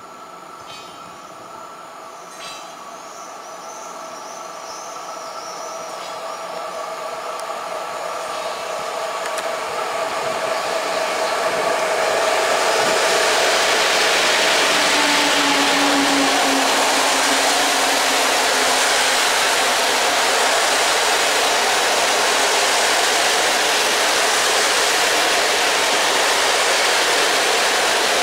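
An EP09 electric locomotive hauling passenger coaches approaches and passes: a steady whine grows louder over the first dozen seconds, and a hum drops a little in pitch as the locomotive goes by. The coaches then roll past with a loud, steady rush of wheels on rail.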